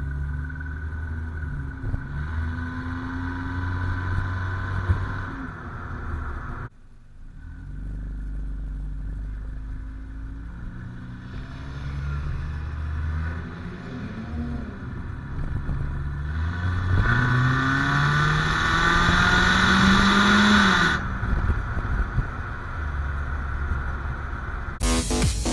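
Car engine and exhaust heard from right beside the tailpipe while driving: the engine note climbs as the car accelerates, drops away sharply about seven seconds in and again about twenty-one seconds in, over a steady rush of wind and road noise. Music starts right at the end.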